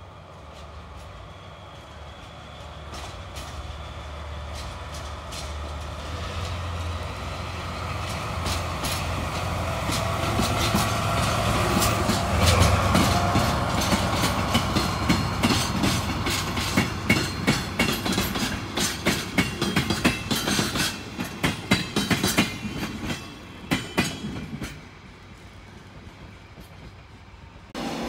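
JNR DE15 diesel-hydraulic locomotive approaching and passing, its low engine hum growing steadily louder to a peak about halfway through. A long rapid run of wheel clicks over rail joints follows as the flatcars roll past, then the sound drops away.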